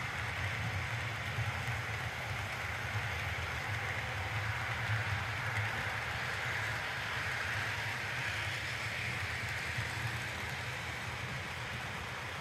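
Model freight train rolling past on the layout's track: a steady rushing noise of the cars' wheels on the rails over a low hum.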